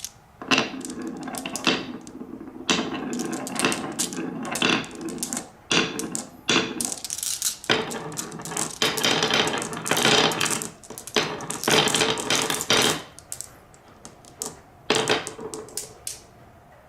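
Many marbles rolling and clattering down a HABA wooden marble run with wave slopes: dense bursts of clicks and rattles with brief lulls in between, the longest about two-thirds of the way in.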